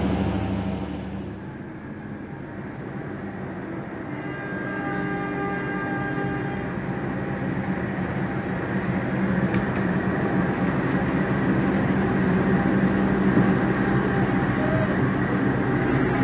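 KAI diesel locomotive passing close by. Its engine is a steady low drone that grows louder as it draws level, and thin high tones ring for a few seconds about four to seven seconds in.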